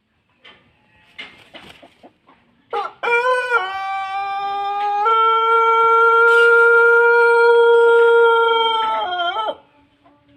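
Pelung rooster giving one long crow of about seven seconds: a short rising opening, then a long steady held note, ending in a brief wavering fall.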